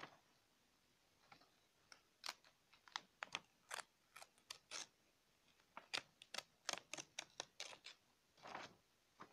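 A sheet of paper being torn out of a spiral-bound notebook, coming away from the wire binding in a quick series of short, sharp rips, with a longer tear near the end.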